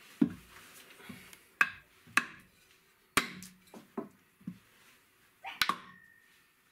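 Hammer blows on a wooden floor joist: about half a dozen sharp knocks at uneven intervals, with a small room's echo.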